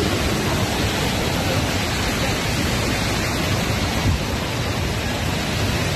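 Floodwater rushing steadily, an even, unbroken noise.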